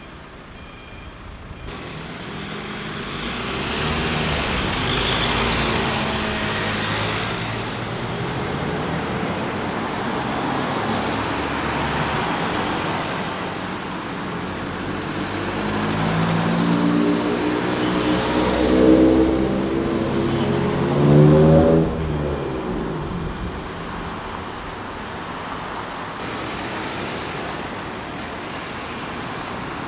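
City street traffic as picked up by a Deity V-Mic D3 on-camera microphone: a steady wash of cars driving past. About two-thirds of the way through, one vehicle passes close, its engine note climbing and growing louder, then dropping away as it goes by.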